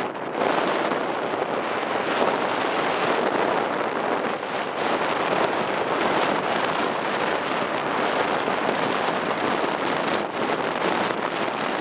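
Strong wind buffeting the microphone aboard a ferry under way: a dense rushing noise that swells and eases without pause.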